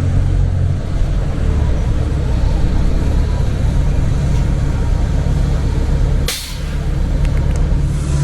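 Semi-truck diesel engine running with a steady low hum. About six seconds in comes a short, sharp hiss of air from the truck's air brake system.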